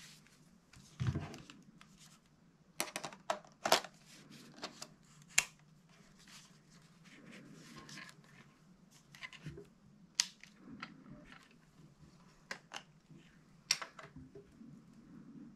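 Sony A6400 camera body and 18-105mm f/4 zoom lens being handled as the lens is mounted: a dull thump about a second in, then scattered sharp plastic-and-metal clicks and small knocks over faint rustling.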